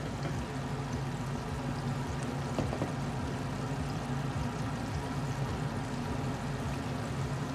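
Floured chicken pieces deep-frying in hot oil: a steady, dense sizzle and bubbling.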